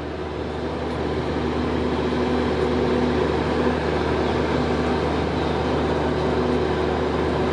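Stationary passenger train idling: a steady machinery hum with a low drone, a little louder after the first second or two.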